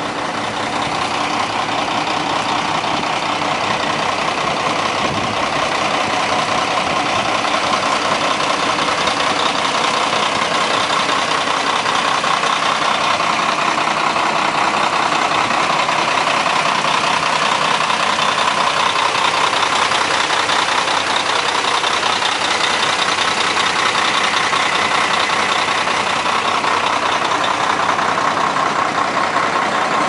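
Front-discharge concrete mixer truck's diesel engine idling steadily, heard up close. It grows louder over the first couple of seconds, then holds steady.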